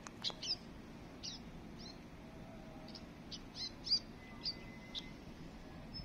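Sparrows chirping: short, sharp chirps, about a dozen, scattered irregularly with uneven gaps.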